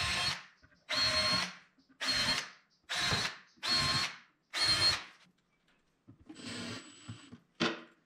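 Cordless power driver running in short bursts, about one a second, five times, driving screws to fit drawer slides into a particle-board cabinet; then a quieter, longer run with a high steady whine and one more short burst near the end.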